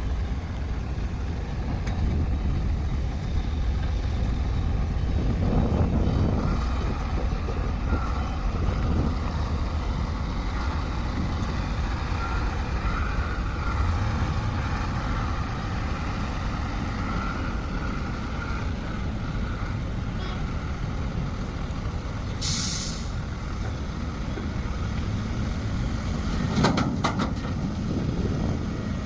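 Heavy earthmoving machinery's diesel engine running steadily, with a short sharp hiss about two-thirds of the way through and a few metallic clanks near the end.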